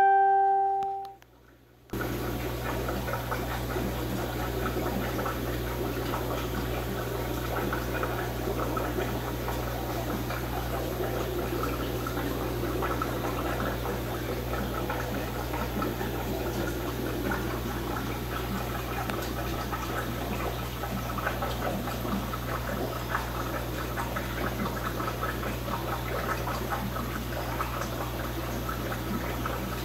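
Aquarium sponge filters bubbling steadily over a low hum. At the start, a short beep-like tone sounds and is followed by a second of near silence before the bubbling resumes.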